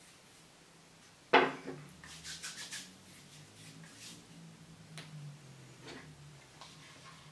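Hard objects handled on a wooden tabletop: a single sharp knock about a second in, then a quick run of light clicks and a few scattered ticks.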